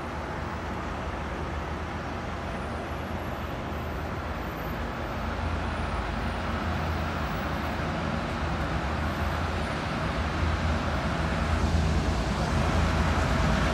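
Diesel locomotive of an approaching work train, a Long Island Rail Road EMD MP15AC switcher, with a low engine rumble that grows steadily louder as it nears.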